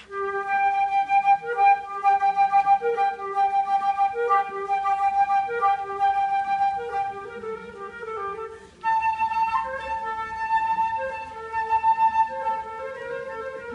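Flute music: a slow melody of lower notes under one long held higher tone, which steps up in pitch about nine seconds in.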